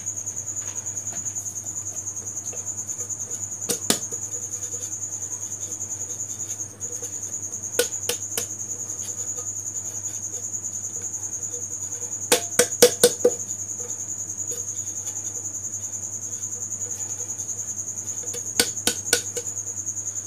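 Aluminium cake tin being tilted and tapped by hand to spread a dusting of flour over its greased inside, giving sharp knocks in scattered groups: a single one, a pair, a quick run of about six, then three. A steady high-pitched whine runs underneath.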